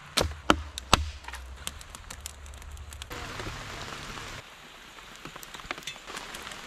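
A hatchet splitting firewood: three sharp knocks within the first second, then steady rain pattering with many light scattered ticks.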